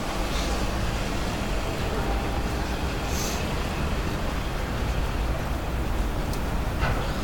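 Steady city street noise with a low traffic rumble, picked up on a handheld phone while walking, with a brief hiss about three seconds in.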